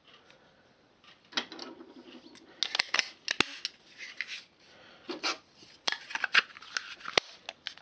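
Handling of a Crosman CO2 air revolver as it is readied after a CO2 cartridge is fitted into the grip: a run of sharp clicks with scraping and rubbing of parts in between.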